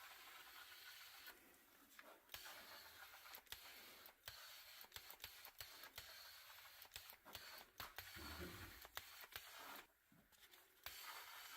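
Near silence: faint hiss with scattered small clicks and scrapes.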